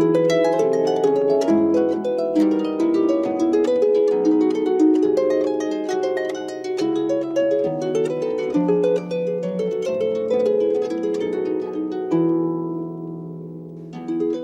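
Harp being played: a continuous run of plucked notes that ring over one another, settling about twelve seconds in into a ringing chord that fades away before the plucking resumes near the end.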